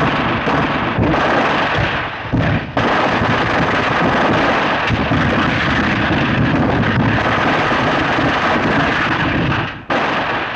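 Sustained Thompson submachine-gun fire in long, nearly unbroken bursts, broken by a few short pauses and tailing off at the end. This is the soundtrack of an early-1930s sound film.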